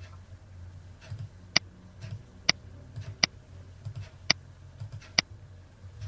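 Computer mouse button clicked five times, roughly once a second, each sharp click with a fainter tick just before it.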